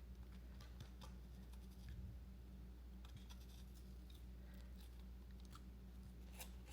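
Faint, irregular clicks and light scraping from a coping cut being made by hand in foam crown molding.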